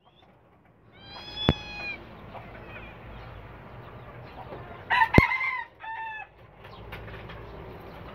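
Rooster crowing twice: a held call about a second in, then a longer broken crow with a short final note about five seconds in. Two sharp clicks, the loudest sounds, fall in the middle of each crow.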